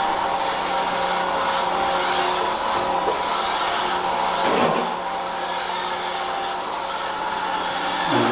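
Robot vacuum cleaner running: a steady motor whir with a hum and a higher whine. A brief dip and swoop in the sound comes about halfway through, after which it runs slightly quieter.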